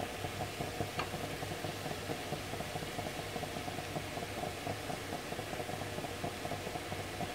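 Steady hum with a faint frying sizzle from spinach and prawns cooking in a frying pan on a gas burner, and one light click about a second in.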